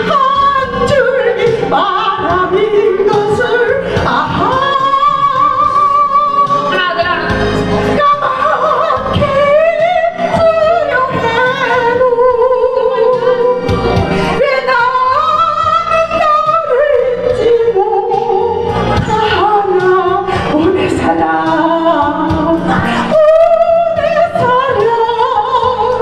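A woman singing a Korean love song into a microphone over a recorded backing track, holding long notes with vibrato.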